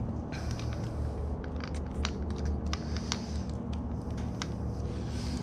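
Small metal clicks and scrapes as the 10 mm bolts are worked loose by hand from the back of a Mercruiser seawater pump housing, irregular and scattered, over a steady low rumble.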